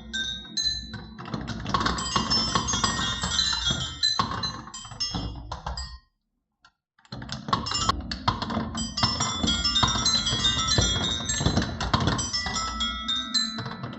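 Many marbles rolling and clacking down wooden marble-run tracks, with bright ringing chime-like tones as they strike the track pieces. The sound cuts out completely for about a second midway, then resumes just as busy.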